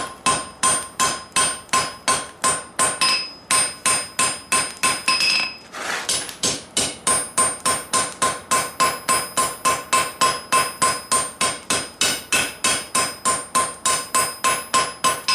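Hand hammer striking red-hot steel bar stock on an anvil, steady blows about three a second, each with a bright metallic anvil ring. At first the bar stands on end and is hammered down to upset it slightly. After a short break about six seconds in, the hammering goes on with the bar lying flat.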